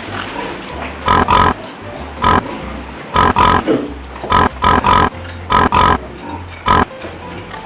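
A pig grunts and oinks about a dozen times in short bursts, many in quick pairs, starting about a second in, over a steady hiss.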